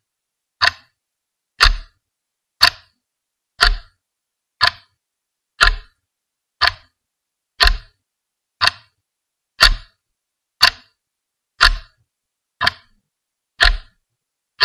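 A clock ticking, about one tick a second, alternating a lighter tick and a heavier tock.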